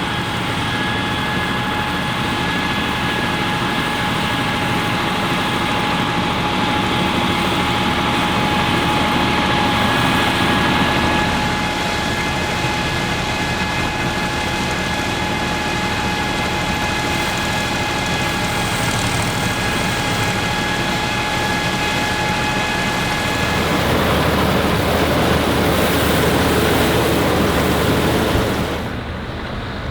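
Air-cooled three-cylinder Deutz F3L514 diesel tractor and the Claas Super pull-type combine running together while threshing wheat, with a steady high whine over the machinery noise. About 23 seconds in the whine stops and the sound turns rougher and a little louder, then eases off near the end.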